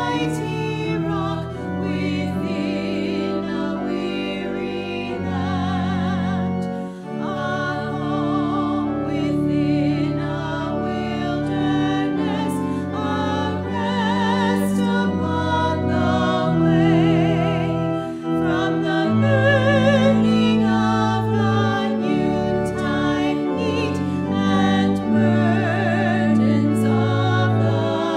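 Two women's voices singing a hymn together with vibrato, over sustained low accompaniment notes that change every second or two.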